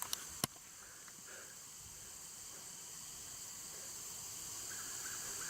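Steady high-pitched insect chorus that slowly grows louder, with a few sharp clicks in the first half-second and faint short chirps near the end.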